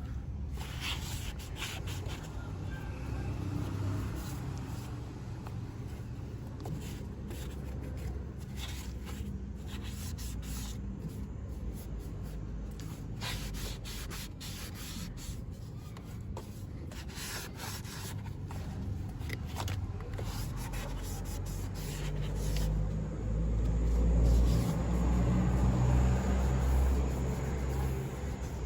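Cloth rubbing and wiping over the black surfaces of a car subwoofer and speakers as a revitaliser is worked in, a scratchy rub with many small handling clicks. A low rumble grows louder near the end.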